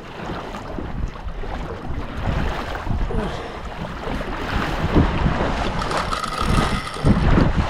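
Wind buffeting the microphone, with water sloshing around a kayak, in uneven gusts.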